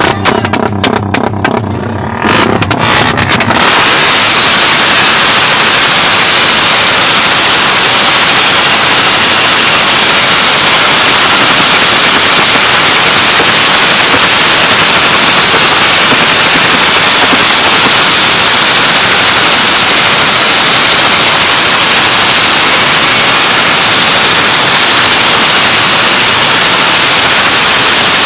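Suzuki Satria F150 four-stroke single-cylinder engine revved in quick throttle blips for about three seconds, then held at high revs. From there it is so loud that the recording distorts into a steady harsh noise.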